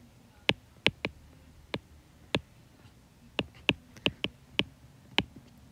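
Stylus tip tapping and clicking on an iPad's glass screen while handwriting letters: about a dozen sharp, irregular clicks.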